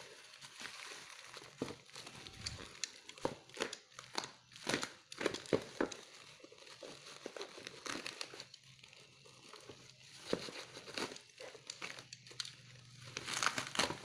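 Thin plastic bag and packing tape crinkling as a taped parcel is handled and pulled open, in irregular crackles, with a louder burst of rustling near the end.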